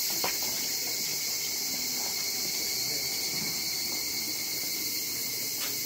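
Steady high-pitched insect chorus, with a faint steady tone underneath it.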